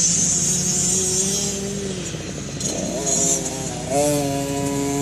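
Small pit bike engine running and revving. Its pitch climbs a little before three seconds in and again about four seconds in, then holds high near the end.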